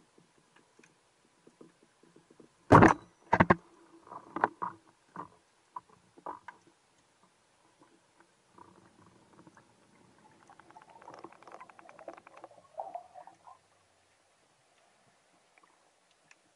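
Underwater knocks and clicks: two loud sharp knocks about three seconds in, a run of lighter taps, then a rapid buzzing rattle of closely spaced clicks from about ten to thirteen seconds in.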